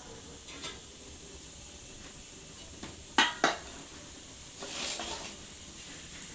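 A lid being set on a bowl of kneaded dough: two sharp clinks a quarter second apart a little past three seconds in, then a short scraping swish about a second and a half later.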